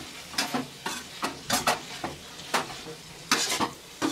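Metal slotted spatula scraping and clacking against a pan in short irregular strokes, about two a second, as pork intestine is stir-fried. Under it the food sizzles steadily.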